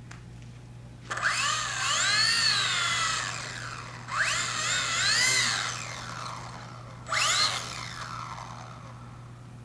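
Electric motor and propeller of an RC model plane (Typhoon 2 3D) revved in three bursts: about a second in, about four seconds in, and briefly near seven seconds. Each burst's whine rises fast and then sinks as the motor winds down.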